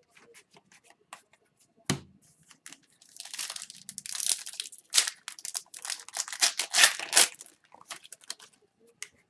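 Hockey card pack wrapper being torn open and crinkled: light clicks and a knock, then about four seconds of tearing and crinkling with several sharp rips.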